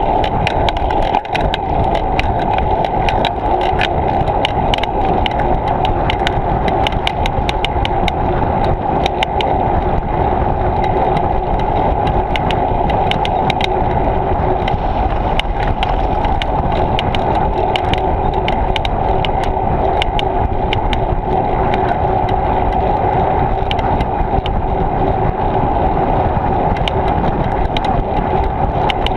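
Bicycle riding along, picked up by a bike-mounted action camera: steady rolling and wind noise with a constant patter of small rattling clicks.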